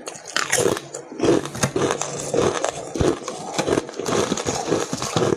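Ice being bitten and chewed close to the microphone: irregular crunching and cracking.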